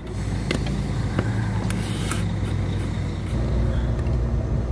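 A truck's engine running steadily while driving, with a few light clicks in the first couple of seconds; the engine note shifts lower about three seconds in.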